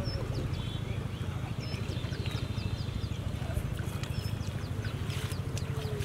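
Steady low rumble with light sloshing of water as men wade and handle a net, and a few short high chirps.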